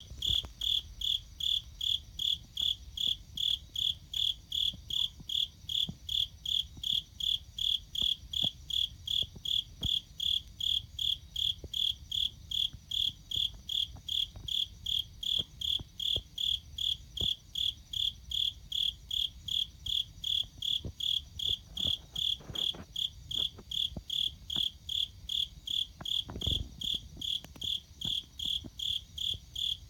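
A cricket chirping in a steady, even rhythm, a little under three high-pitched chirps a second. A few faint knocks sound in the background near the end.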